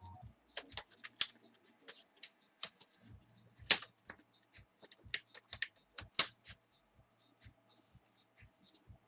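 Plastic clips of an Acer Aspire One 753's case popping loose as a plastic card pries the case open: a run of sharp, irregular clicks and snaps, the loudest about four and six seconds in.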